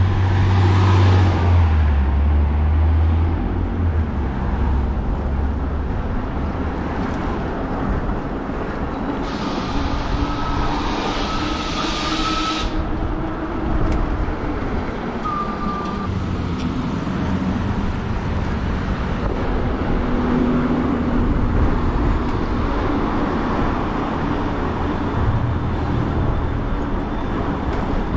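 Road traffic heard from a moving e-bike. A heavy vehicle's low engine rumble is strongest in the first few seconds, and a steady noise of passing traffic runs under it, brightening into a hiss from about nine to twelve seconds in.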